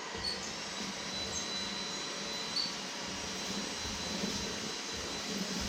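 Dibea C17 cordless stick vacuum running steadily in max mode, a high motor whine over a steady airflow hiss, with a few sharp ticks as debris is pulled into the floor head.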